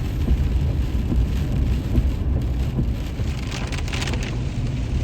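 Heavy rain pelting a pickup truck, heard from inside the cab over the steady low rumble of the truck. A brief patch of louder splashing comes about three and a half seconds in.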